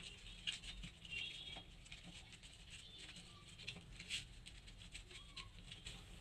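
Faint scratching and scattered light taps of a cardboard strip being rolled up by hand on a stone countertop.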